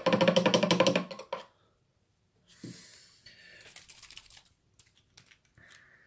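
Plastic paint pot shaken briskly: a fast, even rattle of about a dozen clicks a second for about a second and a half, followed by softer rustling and a few light knocks as the pot is handled.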